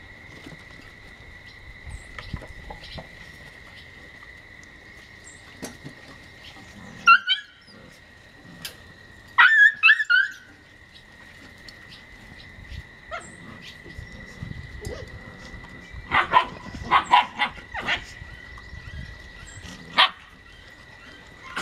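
Ten-week-old Samoyed puppies play-barking in short, high-pitched yips and barks: a couple about seven seconds in, a quick run around ten seconds, a cluster of several a few seconds later, and a single one near the end.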